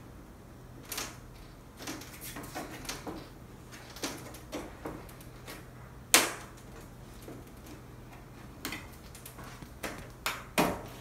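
Scattered sharp clicks and snaps from the clips along the frame edge of an LED TV panel as they are worked loose by hand, the loudest snap about six seconds in and another near the end.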